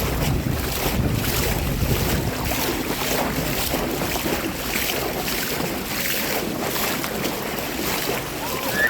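Sea water washing and splashing close to the microphone, with wind buffeting the microphone, heaviest in the first couple of seconds.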